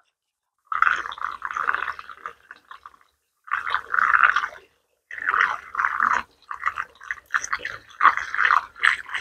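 Petrol being poured through a fuel line into a scooter's fuel tank, coming in uneven spurts with short breaks about three and five seconds in.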